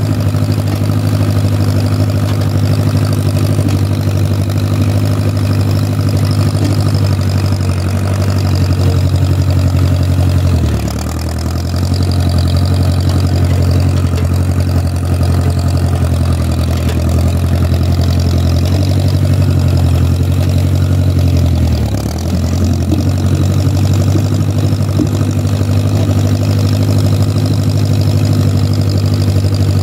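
Old Case tractor's engine running steadily under way. Twice, about eleven and twenty-two seconds in, the engine note sags lower and then comes back up to speed.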